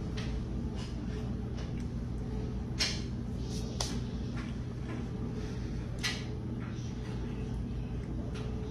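A person chewing a mouthful of peach pie cookie, with a few sharp lip smacks, over a steady low hum.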